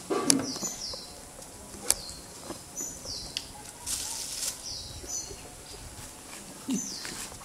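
A bird repeats a short, high, falling chirp every second or so, over a low outdoor background. A few sharp clicks come through, the loudest near the start and about two seconds in.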